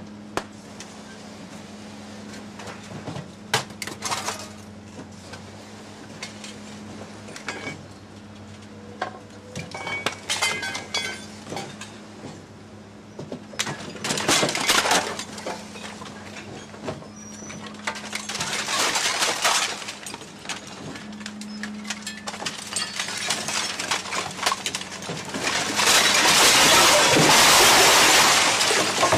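Scrap metal, old electric motors and metal junk, sliding off the back of a truck body and clattering down onto a scrap pile: irregular clanks and crashes over a steady machine hum. Near the end a large mass of scrap pours off together in a long, loud, continuous crash.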